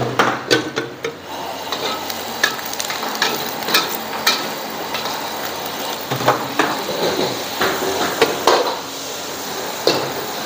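Stir-frying: a metal spatula knocking and scraping in a wok at irregular intervals over the steady sizzle of frying.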